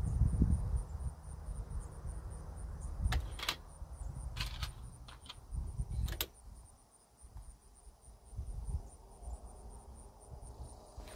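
Insects chirping in a steady high pulse, about three or four chirps a second, over a low rumble that fades after the first couple of seconds. Several sharp clicks and knocks come in the middle and once near the end.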